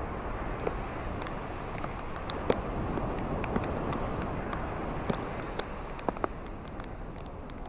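Steady rain falling, a continuous hiss dotted with sharp taps of individual drops landing.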